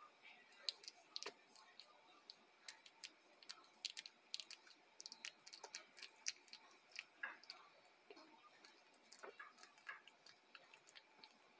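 One-week-old schnauzer puppies suckling at their mother's teats: faint, irregular wet clicking and smacking, densest in the first half.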